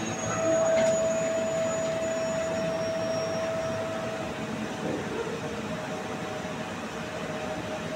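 Steady rushing, hissing noise from steel-plant pipework, with a steady whistling tone that fades out about four seconds in. A man nearby takes the noise to mean the pipe is touching something somewhere.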